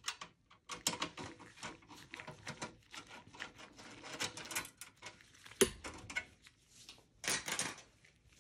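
A screwdriver clicking and scraping against plastic clips and the sheet-steel chassis of a Dell Optiplex 7080 while freeing its power switch: a run of small irregular clicks, with one sharper knock about halfway through and a short burst of scraping near the end.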